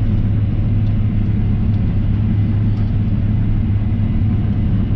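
Steady low drone of a Case IH 9250 Axial-Flow combine working in the field, heard from inside its cab.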